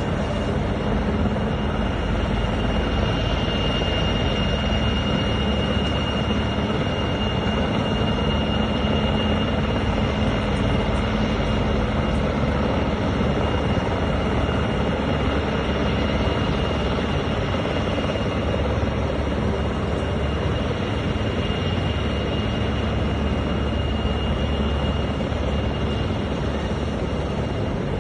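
Rescue helicopter hovering low over the sea: a steady, unbroken drone of rotor and engine with a thin high whine held over it.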